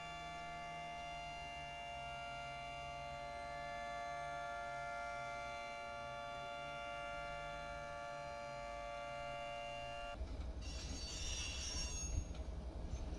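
A train horn held as one long steady chord for about ten seconds, cutting off abruptly. It gives way to a diesel locomotive's low rumble, with a short hiss about a second later.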